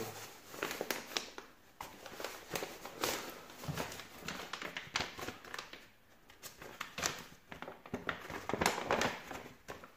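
Irregular rustling and crinkling of paper as a manila envelope is handled and opened by hand, with gloves being pulled off at the start. Short, scattered rustles and small clicks with brief pauses between them.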